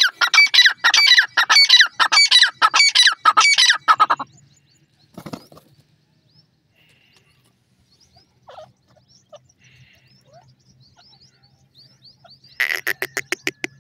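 Grey francolin calling: a loud, rapid series of harsh, ringing notes for about four seconds, then a pause with a few faint chirps, then another quick burst of the same notes near the end.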